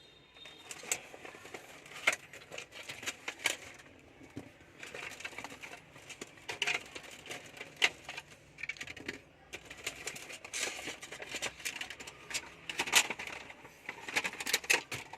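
Handling noise of a cup-holder car charging socket being unpacked: packaging crackling and rustling, with irregular plastic clicks and knocks.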